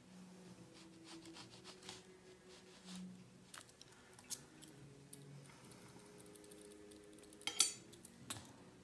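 Faint clicks and clinks of a paintbrush against the wells of a watercolour palette as paint is picked up and mixed, a few light taps and then a louder clatter near the end.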